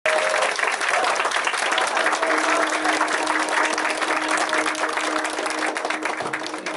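Audience clapping and applauding steadily, with a held low keyboard note coming in about two seconds in.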